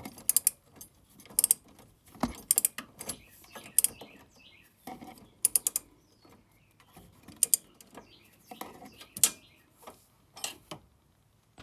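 Socket ratchet clicking in short bursts of quick strokes as 17 mm bolts on an ATV lift bracket are tightened, with pauses between the bursts.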